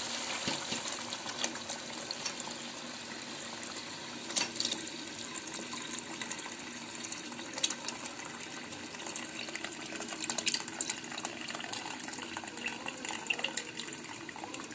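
Meat broth being poured into a hot pot of fried mutton trotters and masala. The gravy then bubbles and sizzles with scattered pops, loudest at the start and easing off later.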